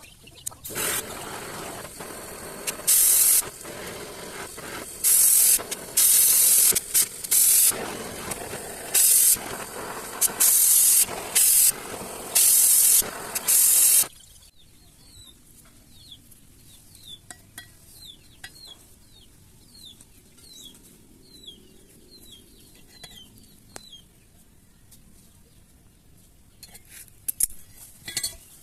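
Welding arc crackling and hissing in about a dozen loud bursts, a second or less each, over a steadier hiss; it stops suddenly about halfway through. Afterwards it is quieter, with a bird chirping again and again and a few metal clinks near the end.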